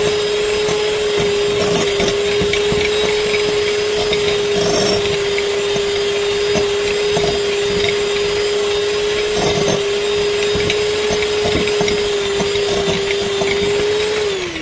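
Electric hand mixer running loud and steady, its beaters churning thick cream-puff (choux) dough in a glass bowl. The motor hum winds down near the end as it is switched off.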